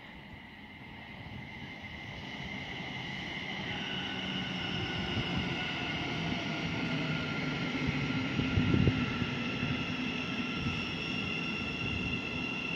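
Electric multiple-unit commuter train moving slowly at the station platform. Its traction motors give a steady whine of several high tones over wheel and rail rumble, growing louder over the first few seconds. A brief low thump comes about nine seconds in.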